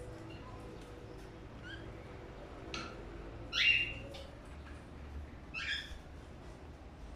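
Budgerigars calling: three short calls in the second half, the middle one the loudest, with faint chirps in between.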